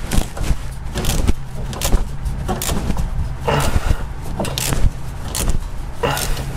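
Irregular metallic clicks, knocks and scrapes as a rusty rear wheel hub is turned and handled by hand, with the hub bolts partly undone.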